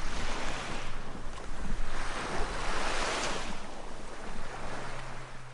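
Small waves washing onto a sandy beach, one swelling in loudest about halfway through, with wind rumbling on the microphone.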